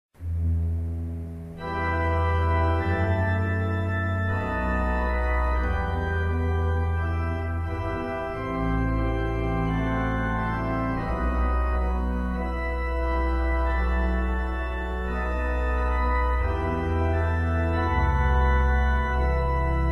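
Church organ playing slow sustained chords over deep pedal bass notes, the harmony changing every second or two.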